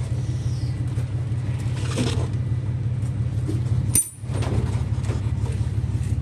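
A steady low mechanical drone, with a sharp click and a brief dropout about four seconds in.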